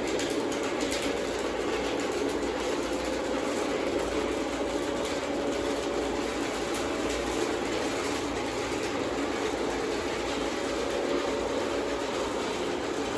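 Several Lionel O-gauge model trains running at once on the metal track: a steady, even rumble and whirr of wheels and motors, with a faint steady hum.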